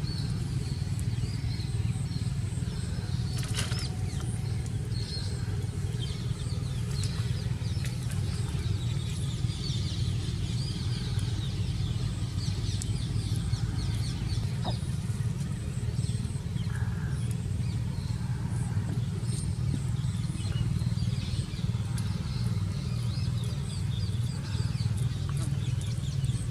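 A steady low rumble, with short high chirps scattered through it and a single sharp click a few seconds in.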